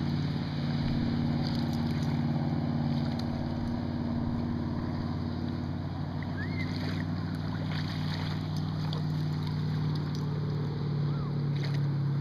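A steady low engine drone, unchanging throughout, with a couple of faint short chirps over it.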